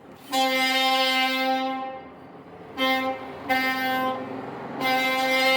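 Rear brake of a Royal Enfield Classic 350 Reborn squealing as the rear wheel turns: a loud, steady, horn-like tone that comes and goes in repeated pulses of about a second, four in a few seconds. Technicians put it down to the brake pad and call it normal, which the owner doubts.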